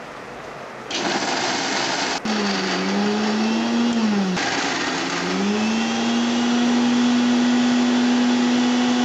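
Electric kitchen mixer grinder coarsely grinding roasted cluster beans, green chillies, peanuts and garlic. The motor starts about a second in with a steady whine, cuts out for an instant, sags in pitch around the middle as it loads up, then recovers and runs steadily.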